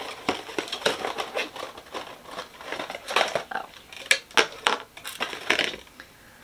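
Small cardboard product box being opened and its humidifier slid out: a run of rustling, scraping and sharp clicks of card and packaging, stopping about six seconds in.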